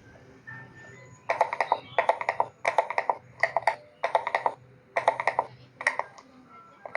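Background music made of short, rapidly pulsing bursts of notes that repeat about once a second, starting about a second in.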